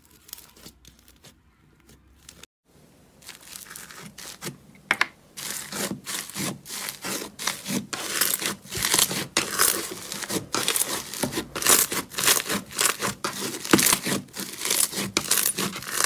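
Thick, fluffy orange textured slime kneaded and pressed with both hands, giving dense crackling and tearing sounds, many sharp crackles a second. It starts quietly and gets loud about five seconds in. Before that come faint clicks from fingers poking a glossy slime.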